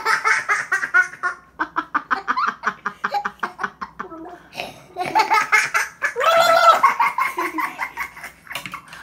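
Young children laughing hard, in quick rhythmic bursts of giggling, with a louder, drawn-out laugh or squeal from about five to seven seconds in.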